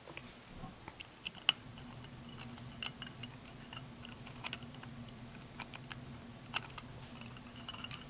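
Scattered small clicks and taps of screws and a small screwdriver being handled and worked into an RC truck's bumper, over a faint steady low hum.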